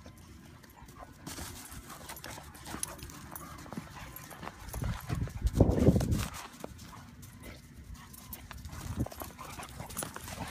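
Two dogs play-wrestling in snow: scuffling paws and bumping bodies, with a louder low rumbling noise for about a second just past the middle.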